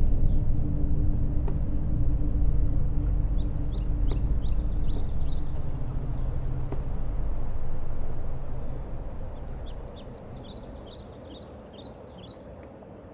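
A low drone that fades away about nine to ten seconds in, with small birds twittering in two quick bursts, one about four seconds in and another near the end.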